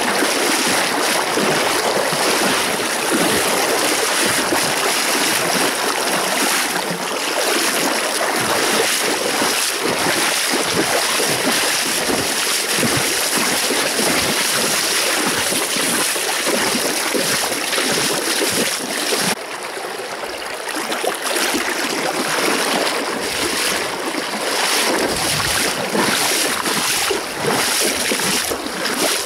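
Fast taiga river rushing over stones: a loud, steady rush of water. It dips briefly about two-thirds of the way through.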